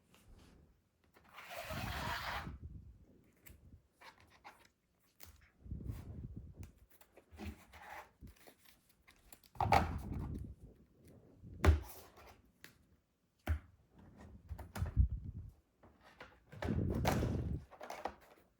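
Trading cards being handled on a fabric playmat: irregular soft sliding rustles and low thuds, with a few sharper light knocks.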